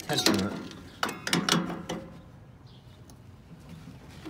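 Vise grip locking pliers clicking and clanking against steel as they are fitted onto the nut under a riding mower's deck-belt tensioner pulley: a short cluster of sharp metallic clicks about a second in, then quiet handling.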